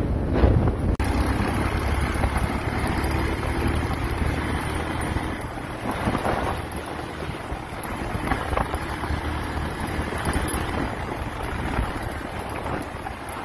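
Motorcycle riding over a rough dirt track: the engine runs steadily under heavy wind buffeting on the bike-mounted microphone.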